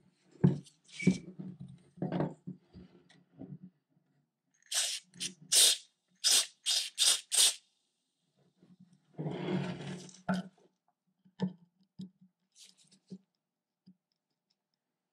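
Knocks and scrapes of the rusty cast-iron ice cream maker gear frame being handled on a wooden bench, then about six short hisses in quick succession from an aerosol spray can fired through its straw at the frame's rusted screws. A longer rustle and a few small clicks follow.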